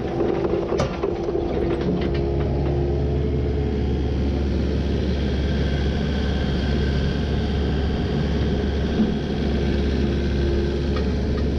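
Kubota KX080-4 excavator's diesel engine running steadily, with a few sharp clacks of rock against rock or the bucket in the first two seconds.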